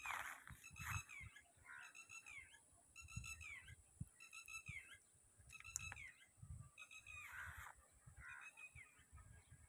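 A bird calling over and over, faint: a short, falling note repeated about once a second. Soft low thumps sound underneath.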